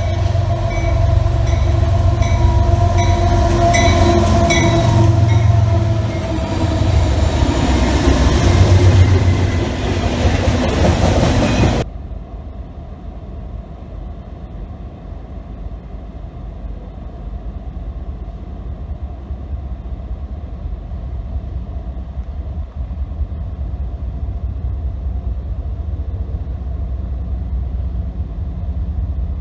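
Freight train with diesel locomotives approaching and passing a grade crossing, with a crossing bell dinging about twice a second and the engines and wheels loud. About twelve seconds in it cuts to a much quieter steady low rumble, heard from inside a car as Norfolk Southern locomotives roll by.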